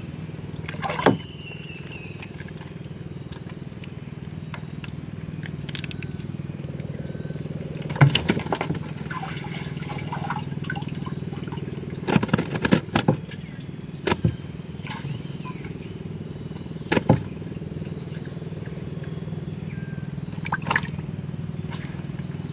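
Sharp knocks and clatters, a handful of times with a quick cluster midway, against a steady low hum and a thin steady high tone: handling gear on a small boat during handline fishing.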